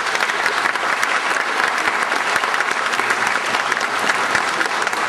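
Theatre audience applauding, many hands clapping densely and steadily.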